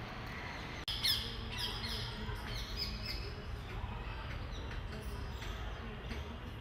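Birds chirping and squawking: many short, high, falling calls one after another over a steady low background hum. They begin at an abrupt sound cut about a second in.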